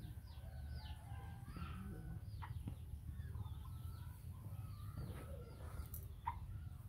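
Scattered short chirping calls, each sliding down in pitch, over a low steady hum.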